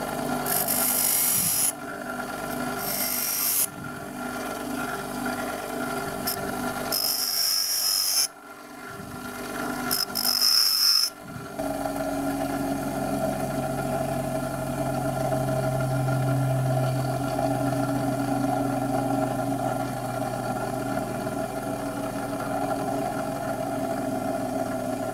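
Bench grinder running with an emery wheel, while a steel twist drill bit is touched to the wheel in several short grinding passes to sharpen its cutting edges. After about eleven seconds the grinding stops and only the steady motor hum goes on.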